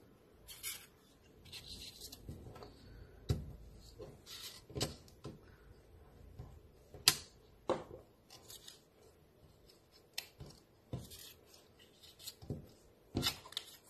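Construction paper squares rustling and tapping as they are picked up and pressed onto glued plastic elephant-ear pieces, with scattered small clicks; the sharpest click comes about seven seconds in.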